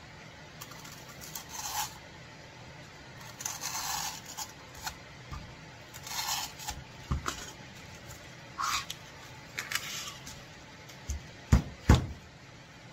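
A blade cutting and scraping through cured expanding spray foam (Great Stuff) that glues a lithium battery cell pack into its case, in short scattered rasping strokes. Near the end come two heavy thumps as the freed cell pack knocks onto the workbench.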